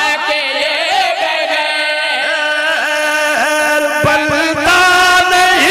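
A man's voice chanting a devotional qasida into a microphone, holding long notes that slide and curl at the ends of phrases.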